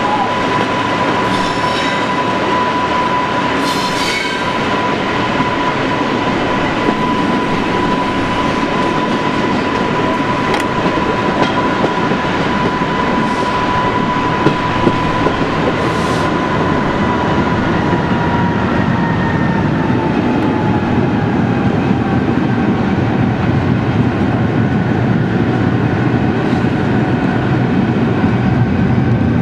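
Passenger train running, heard from a carriage window: steady rumble and rail noise with a few sharp clicks. Over it sits a high, steady whine that begins to fall slowly in pitch a little past halfway.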